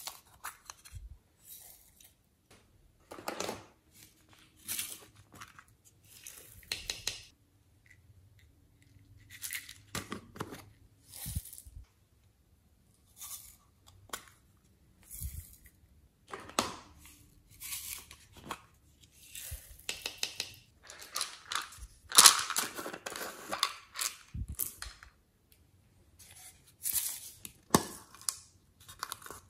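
Small plastic cases and containers being handled and opened by hand: irregular clicks, scrapes and rustles of plastic, with short quiet gaps between them.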